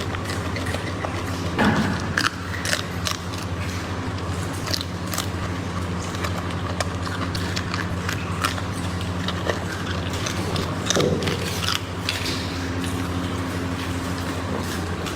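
Proboscis monkey biting and chewing food, a run of irregular crunching clicks, over a steady low hum.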